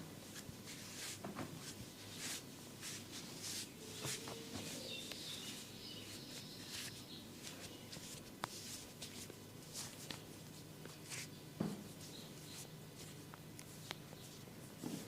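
Hands massaging a head and neck: faint, irregular rustles, rubs and light taps on skin and hair, with scattered sharper clicks.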